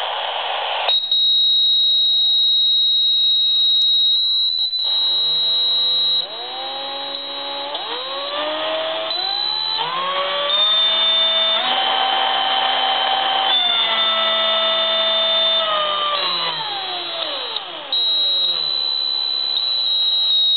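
AM radio tuned between stations picking up electromagnetic interference from a Black & Decker cordless drill's motor. About a second in, the radio static gives way to a steady high whine. Then a buzzing tone rises in pitch in steps as the motor speeds up, holds, and falls again, and the whine returns near the end.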